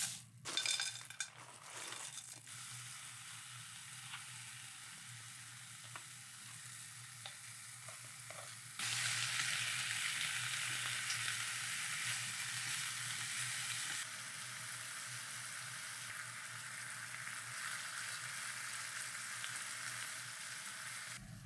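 Food sizzling as it fries in a pan: a steady hiss, with a few clicks and scrapes of stirring in the first couple of seconds. It gets louder about nine seconds in and drops back again around fourteen seconds.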